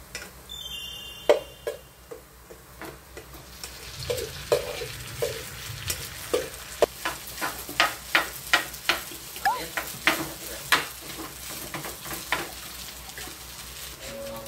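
Rice stir-frying in oil in a frying pan, sizzling, while a metal spoon scrapes and knocks against the pan. The strokes grow quick and frequent from about four seconds in.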